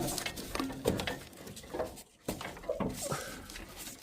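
Irregular clicks, knocks and short squeaks of metal and plastic parts being handled and fitted inside a Worcester boiler casing while a pressure vessel is positioned, with a sharp knock at the start.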